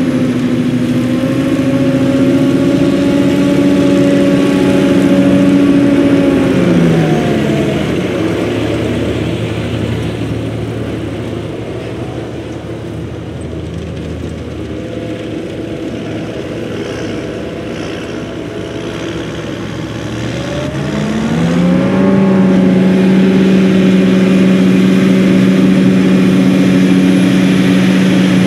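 John Deere self-propelled forage harvester and the tractor hauling the silage trailer alongside, running steadily while chopping maize for silage. About a quarter of the way in, the machine note drops in pitch and fades. Near three-quarters through, it rises in pitch and grows loud again.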